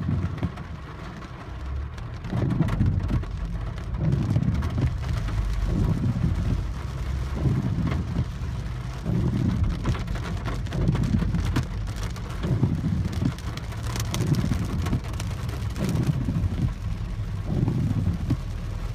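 Heavy rain drumming on a Peugeot 408's roof and windshield, heard from inside the cabin, with the windshield wipers sweeping and giving a low thump about once a second.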